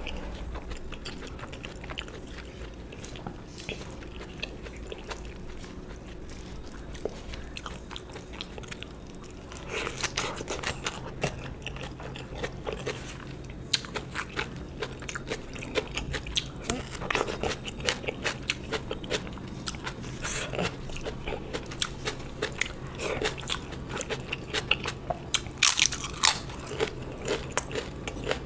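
Close-miked eating: a person chewing and biting food, with short sharp crunches that come thicker and louder from about ten seconds in.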